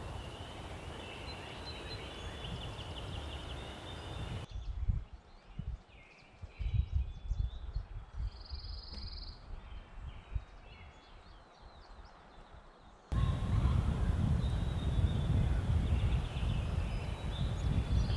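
Outdoor ambience: wind buffeting the microphone with birds calling. About four seconds in it switches abruptly to a calmer stretch of bird calls with a few low thumps, and the wind rumble returns abruptly about thirteen seconds in.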